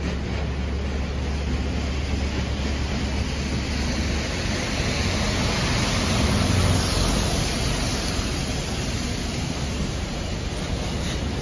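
City bus pulling in to the stop on a wet street, its engine and tyre noise swelling to their loudest a little past halfway.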